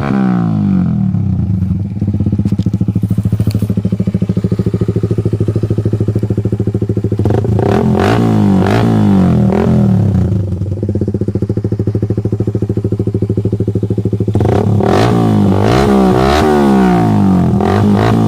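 Suzuki Raider 150's single-cylinder four-stroke engine through an open (unmuffled) JAD Racing exhaust pipe. It idles with an even putter and is blipped up and down: revs falling just after the start, a few blips around the middle, and repeated revving near the end.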